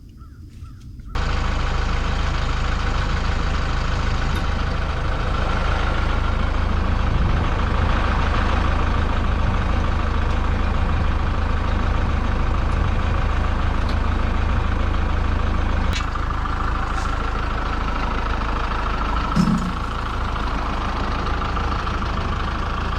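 Tractor engine running steadily at an even speed, cutting in suddenly about a second in, with a brief low knock near the end.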